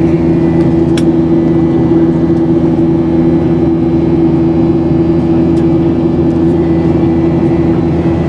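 Airliner cabin noise in cruise: the steady drone of the jet engines and rushing airflow, with a constant low hum. A brief click sounds about a second in.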